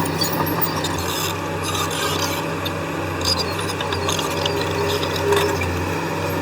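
Bulldozer's diesel engine running steadily, with a rough grating, scraping noise and scattered sharp clicks and clanks over it.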